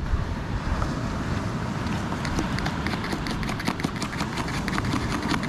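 Metal spoon clinking quickly and repeatedly against a steel mug while stirring coffee, starting about two seconds in. Under it, a steady low rumble of wind on the microphone.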